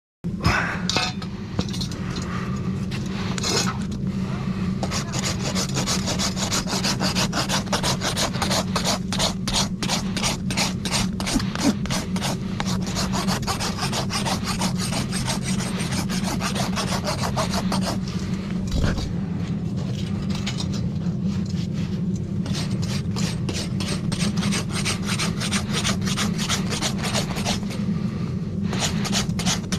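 A farrier's rasp drawn back and forth across a horse's hoof in quick, even rasping strokes, with a few short pauses, over a steady low hum.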